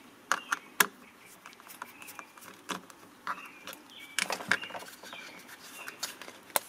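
Small clicks and scrapes of a handheld plastic garage door opener remote being opened: a screw being taken out and the plastic case pried apart, with a sharper click near the end.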